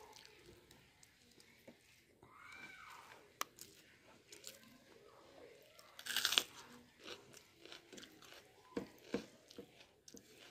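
Eating rice and curry by hand: fingers squishing rice on a plate, then chewing with small crunchy bites and wet mouth clicks. The loudest is a crunchy bite about six seconds in.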